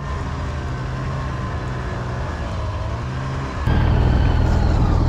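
Snowmobile engine running as the sled rides along, a steady low drone that gets louder about three and a half seconds in.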